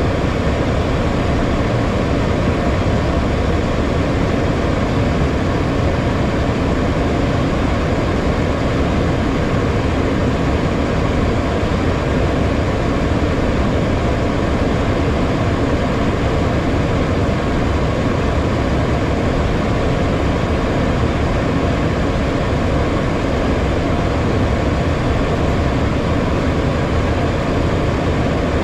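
Steady cockpit noise of a HondaJet on approach: the rush of airflow over the cockpit and the hum of its two GE Honda HF120 turbofans, even in level, with no change throughout.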